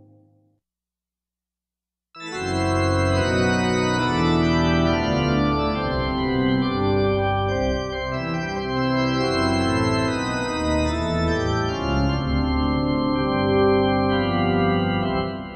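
Roland D-50 digital synthesizer playing one of its factory presets: after about two seconds of silence, full chords over a moving bass start suddenly, change every second or so, and die away at the end.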